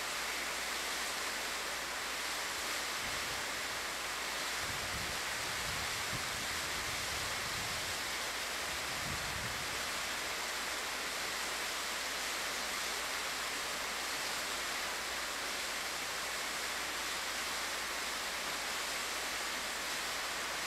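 Waterfall pouring steadily into a pool, an even rush of falling water, with a few low rumbles in the first half.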